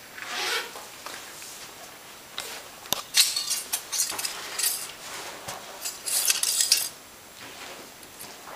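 Domestic cat scratching and scrabbling at a wooden door with its claws: a run of irregular scratchy scrapes from about three to seven seconds in.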